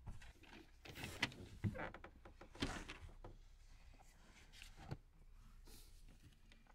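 A van's quilted cab curtain being pulled closed: the fabric rustles and there are several sharp clicks over the first few seconds.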